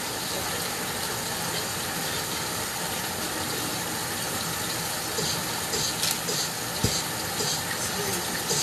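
Catfish deep-frying in hot oil, sizzling steadily, with a few scattered pops and crackles in the second half.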